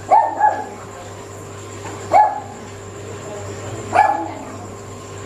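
A dog barking: two barks in quick succession at the start, then single barks about two and four seconds in.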